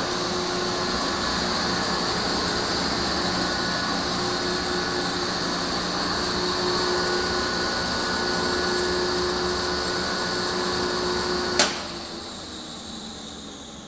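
Polin tilt-bowl spiral mixer running with a steady machine hum and whine. Near the end it is switched off at its control panel: a sharp click, then the running sound drops away as the mixer winds down.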